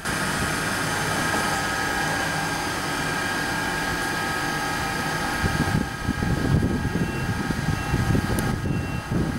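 DB class 424 S-Bahn electric multiple unit standing at the platform, its on-board equipment giving a steady whine with several tones. Rumbling noise joins from about halfway through, and a few short high beeps sound near the end.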